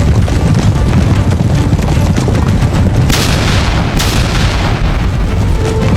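Battle sound effects of landmines exploding: a dense, continuous low rumble of blasts, with two sharper explosions about three and four seconds in.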